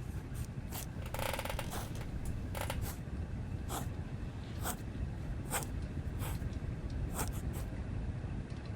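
Writing on paper: short scratchy strokes every half second to a second, with a longer scribble about a second in, over a steady low rumble.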